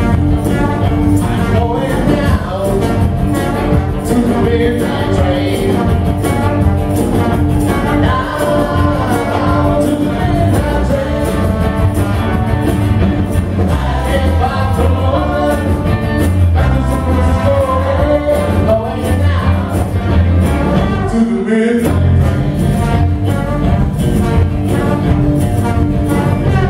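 Live band playing a blues-rock number on electric guitar, trombone and bass guitar, with the trombone carrying melodic lines. About three-quarters of the way through, the low end cuts out for a moment.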